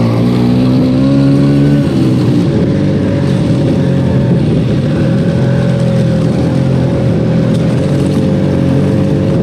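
Vespa scooter engine running under way, its pitch climbing over the first two seconds as it accelerates, then holding steady.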